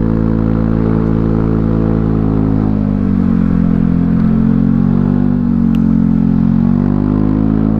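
Honda Scoopy scooter's single-cylinder engine working hard on a steep uphill climb, its pitch sagging a little about three seconds in and picking back up near the end.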